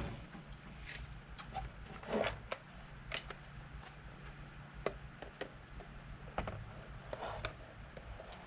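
Pliers and tools being handled on the plastic airbox cover: scattered light clicks and knocks, a few a second apart, over a faint steady low hum.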